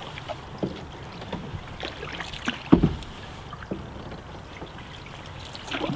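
Cedar-strip canoe being paddled on still water: scattered splashes and drips of paddle strokes, with one louder low knock about three seconds in.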